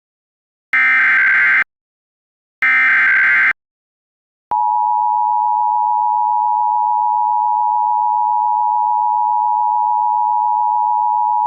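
Emergency Alert System tones. Two short screechy data bursts of the SAME header, about a second each, then about four and a half seconds in the steady two-tone EAS attention signal starts and holds.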